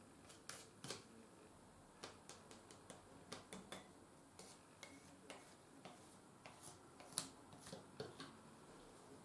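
Faint, irregular small clicks and taps as a wooden spatula dabs and spreads thick gel over metal drill parts in a stainless steel tray.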